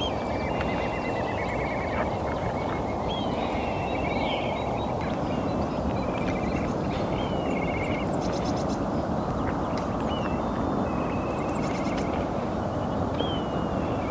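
Black kite giving its whinnying call again and again, each call a high falling whistle that breaks into a fast quavering trill. Under the calls runs a steady low rushing noise.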